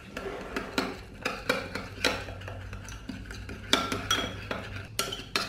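Metal teaspoon stirring a thick mix of sour cream and spirulina powder in a ribbed glass bowl, the spoon scraping and clinking against the glass in repeated irregular strokes, about three a second.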